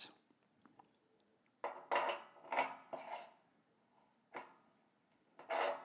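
Metal radiator valve key and its tommy bar knocking and clinking together as they are handled: about five separate short knocks with brief ringing, spread over a few seconds.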